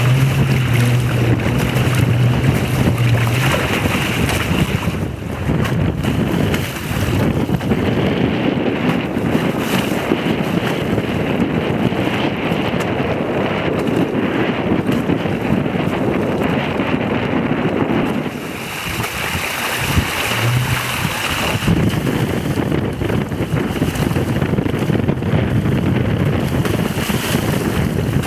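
Wind buffeting the microphone and water rushing past the hull of a 5 m sailing proa moving fast under sail. A steady low hum sounds for the first few seconds and again briefly about twenty seconds in.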